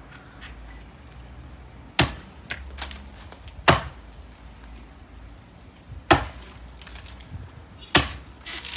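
Axe blows chopping into a coconut palm trunk: four heavy, sharp strikes spaced about two seconds apart, with a few lighter knocks between them.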